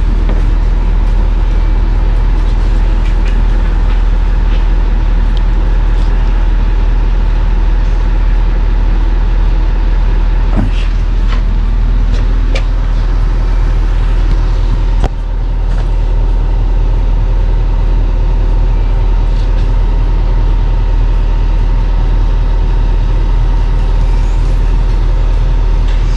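Car running with a steady low rumble, with a few faint clicks and a brief dip in level about halfway through.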